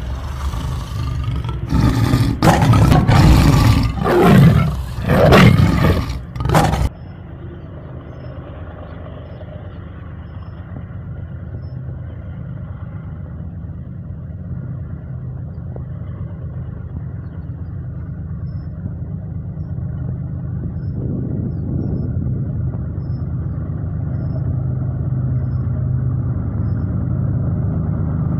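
About four loud tiger roars in the first seven seconds, then a diesel locomotive's engine rumbling steadily, growing slowly louder as the train approaches.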